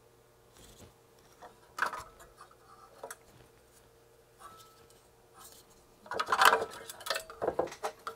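Light clicks and handling of small parts, then about six seconds in a louder metallic clatter and rattle as the oscilloscope's sheet-metal rear chassis is picked up and handled.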